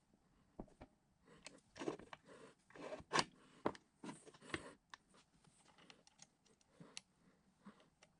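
Small metal parts and hand tools clicking and scraping against the cast-iron drill press head as it is assembled, in scattered short clicks, with the sharpest click about three seconds in.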